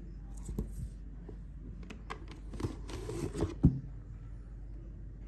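A CD box set being handled: the box's card rustles and slides and plastic CD cases click, with a sharp clack about two-thirds of the way through.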